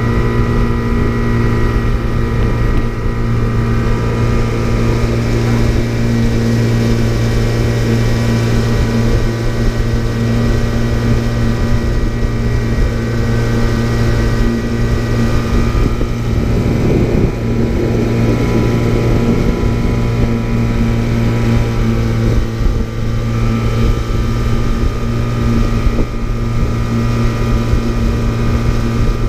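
Small boat's outboard motor running steadily at cruising speed, one even drone with no change in pitch, with wind on the microphone.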